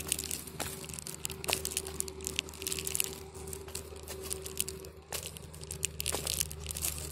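Footsteps crunching and crackling through dry fallen leaves and twigs on a dirt trail, in irregular steps, over a faint steady hum.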